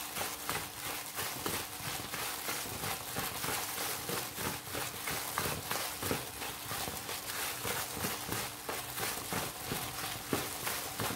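Gloved hands rubbing and squeezing damp, clumping flour in a basin for a crispy fried-chicken coating: a quick, continuous rustle and scrunch of flour and plastic gloves, several small strokes a second.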